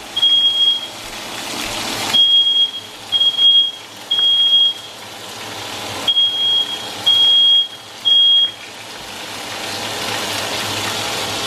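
Smoke alarm sounding its repeating three-beep pattern: sets of three high beeps about half a second long, with a longer pause between sets. Underneath, bacon sizzles in a frying pan, the sizzle growing louder near the end.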